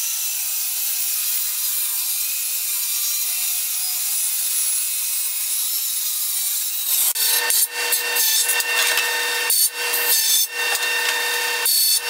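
Handheld circular saw cutting steadily through a glued-up wooden panel along a straight edge. About seven seconds in, it gives way to a jointer trimming the panel's edge in a series of short passes with brief gaps between them.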